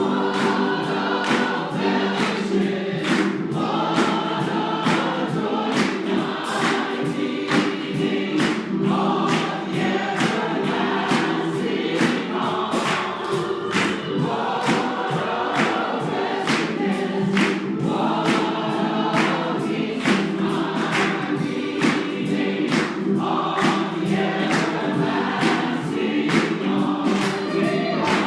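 A congregation singing a gospel song together, with a steady beat of sharp strikes, about two a second, running through it.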